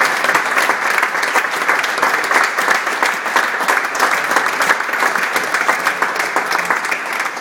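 Crowd applauding: many hands clapping in a steady, dense patter that eases slightly near the end.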